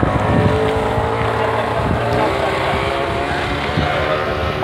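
Speedboat outboard motor running steadily, its pitch wavering slightly, with wind buffeting the microphone.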